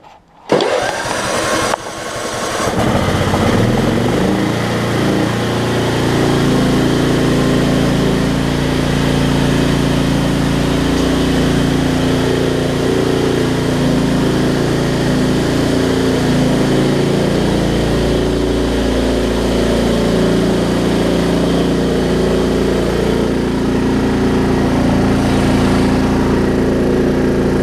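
Craftsman LT1750 riding mower's Kohler Pro 17.5 hp engine starting up. It catches about two seconds in and then runs steadily.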